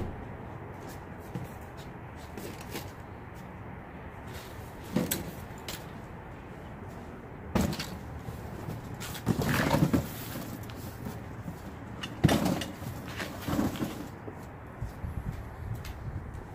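Things being handled and sorted by hand: scattered knocks and clatters with some rustling, busiest in a few clusters in the second half, over a steady low background noise.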